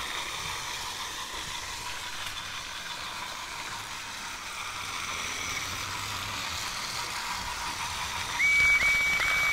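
Battery-powered TOMY Trackmaster toy trains running on plastic track, with a steady motor whir and wheel rattle. Near the end, three short high tones come in quick succession, each sliding up and then holding.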